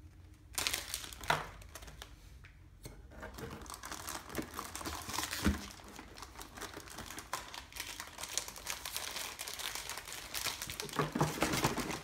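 Foil blind-bag booster packs crinkling and rustling as they are handled and opened, with one sharper knock about five seconds in.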